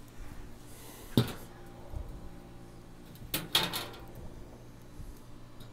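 Sharp metal clanks as the steel grates and parts of a Weber Smokey Mountain charcoal smoker are handled and set in place: one clank about a second in, then a quick cluster a little after three seconds.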